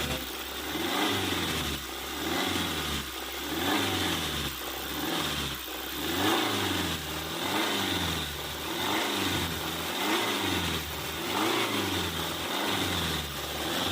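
Hyundai Sonata DN8's 2.5-litre four-cylinder engine running, its pitch rising and falling about every second and a bit as it is revved up and let down over and over. This is the engine with the rattling, knocking noise under diagnosis.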